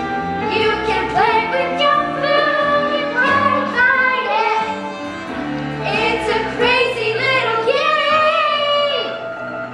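Singing over instrumental accompaniment: a sung show-tune melody with sustained bass notes underneath.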